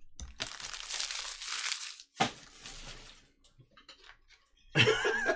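Foil trading-card pack wrapper and cards being handled, crinkling and tearing: a rustle for about a second and a half, a sharp crackle about two seconds in, then louder crinkling near the end.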